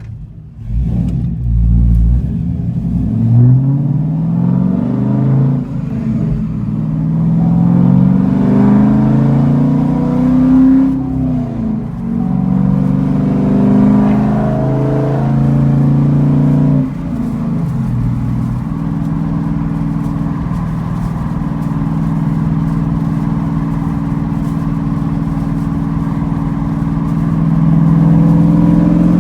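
Chevrolet Camaro exhaust through a Flowmaster Super 10 single-chamber muffler, accelerating hard. The note rises and drops back at three upshifts, then settles into a steady cruise.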